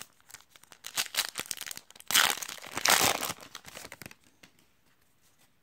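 A foil booster-pack wrapper crinkling and being torn open, with a louder, longer rip about two seconds in.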